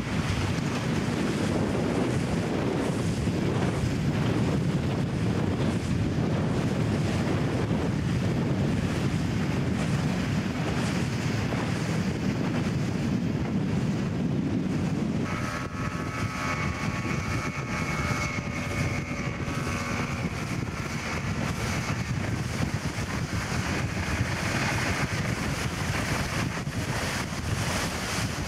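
Wind buffeting the microphone over rushing water. About halfway through, the sound changes to a RIB's outboard motor running at speed with a steady whine, over the rush of its wake.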